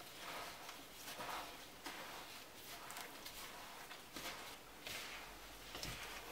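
A gloved hand kneading butter, sugar and flour into streusel crumbs in a plastic bowl: faint, repeated soft squishing and rustling strokes, one or two a second.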